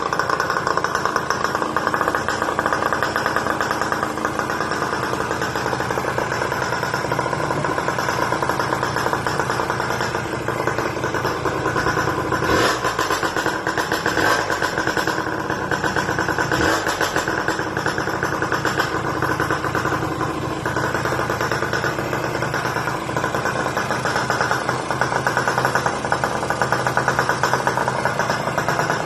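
Suzuki X4 motorcycle engine running steadily, with two brief changes in its sound in the middle.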